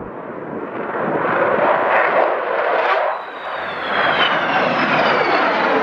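Avro Vulcan's four Rolls-Royce Olympus turbojets roaring in a low flypast, the roar swelling and fading. From about halfway a high whine over the roar falls steadily in pitch as the bomber passes.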